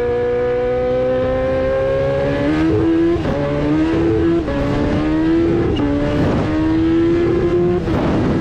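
Kawasaki Ninja H2R's supercharged inline-four engine under hard acceleration at high speed. Its pitch climbs steadily, drops sharply with an upshift about two and a half seconds in, then climbs again.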